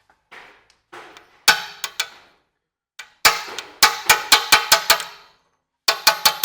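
Metal being struck again and again: sharp, ringing clangs, scattered at first, then in quick runs of about four strikes a second.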